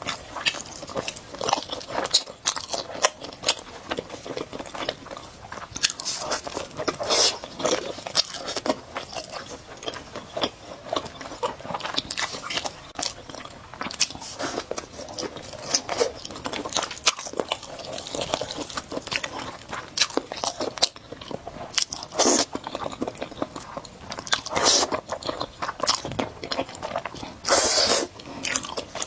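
Close-miked eating: a person chewing and biting spicy noodles, with many small wet clicks and crunches and a few longer, louder bursts.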